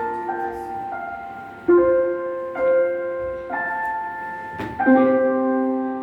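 Background music: slow piano or keyboard chords, a new chord struck about once a second and held.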